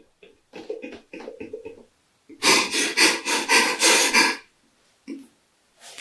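A man's breathy vocal sounds: gasps and rasping, cough-like breaths, softer at first, then a louder stretch of about two seconds in the middle and a short one near the end.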